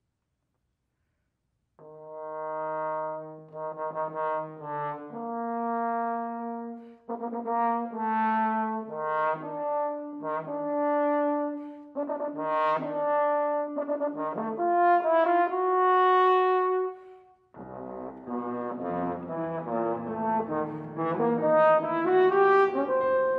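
French horn playing an unaccompanied phrase of separate held notes, starting after about two seconds of silence. About seventeen seconds in, a Steinway grand piano enters beneath the horn and the two play together.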